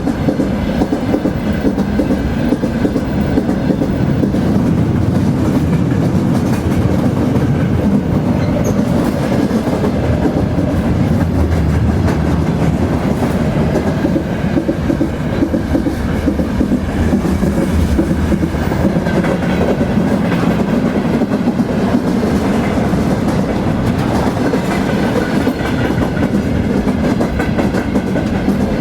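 Train wheels rolling along the rails: a steady, unbroken low rumble that keeps an even level throughout.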